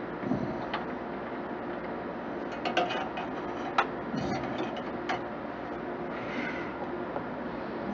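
Irregular small clicks and scrapes of hand tools working inside a desktop computer case, several sharp clicks, the loudest about three and four seconds in, over a steady low hum.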